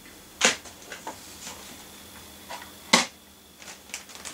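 Sharp clicks: two loud ones about two and a half seconds apart, with several fainter ticks between them, over a faint steady hum.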